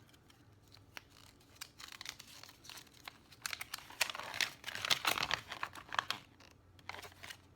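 Paper and plastic packaging of a cube box and its instruction manual being handled, rustling and crinkling irregularly, busiest in the middle stretch.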